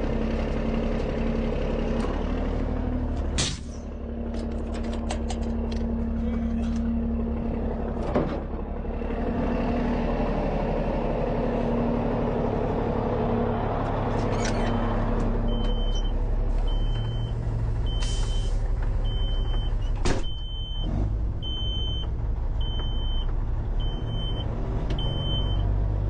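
Heavy semi-truck's diesel engine running steadily, with a few sharp hisses of air. From about two-thirds of the way in, a reversing beeper sounds about once a second.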